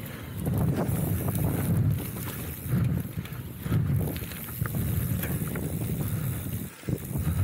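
Mountain bike riding fast down a rough dirt and grass track: an uneven rumble of the tyres on the ground, with knocks and rattles from the bike as it bumps over the surface.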